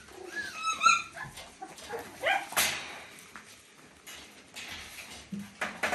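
Eight-week-old Papillon puppies playing: short high-pitched yips and squeals in the first second, a rising yelp a little after two seconds in, and scattered sharp clicks and knocks of their scrabbling on a hard floor.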